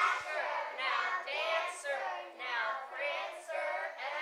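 A group of young children reciting a poem in unison, their voices rising and falling together in an even, chant-like rhythm.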